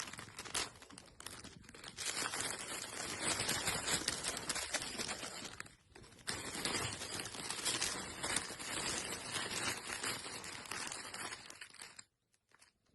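Faint rustling and crackling with many small scattered clicks, in two stretches split by a brief gap about six seconds in.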